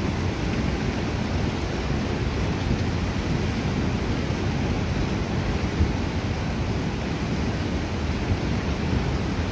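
Mountain river in heavy flood: a steady, deep rush of muddy floodwater churning and breaking against the bank.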